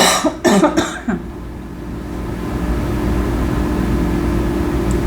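A person coughing three times in quick succession within the first second, then a steady low background hum.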